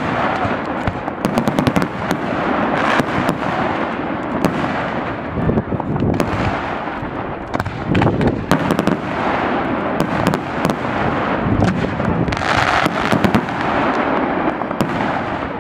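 Professional fireworks display going off in a dense, continuous barrage: many sharp bangs in quick succession over a steady crackle, with no let-up.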